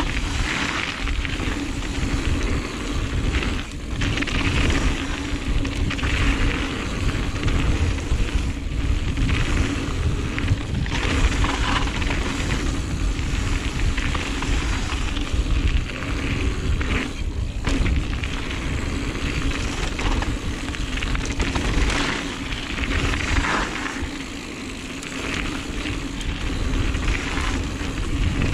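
Giant Reign mountain bike running fast down a dirt flow trail, heard through a GoPro Hero 7 Black's microphone: heavy wind rumble on the mic over continuous tyre noise on the dirt, with a dip in level near the end.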